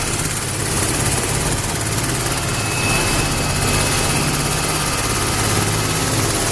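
Steady, loud machine noise: an even engine-like drone with a faint high whine over it, holding level throughout.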